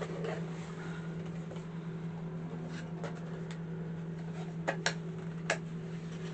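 A few light clicks and knocks of a starter kit's contents being handled, over a steady low hum. The loudest two come near the end.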